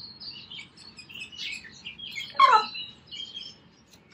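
Young hens (pullets) cheeping with many short, high chirps. One louder call falls steeply in pitch about two and a half seconds in.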